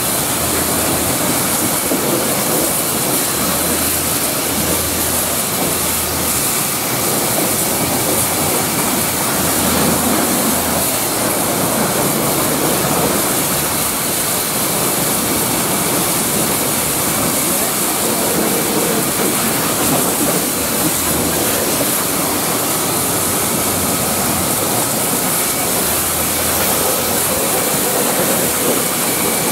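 High-pressure water jet from a pressure-washer lance spraying against heavy truck tyres and steel wheel rims: a steady, loud hiss of water.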